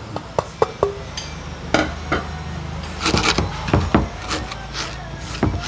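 Pestle knocking and scraping in a cobek mortar, grinding wet tomato-and-chilli sambal by hand. It starts with light quick clicks, then heavier irregular knocks and grinding scrapes come in clusters.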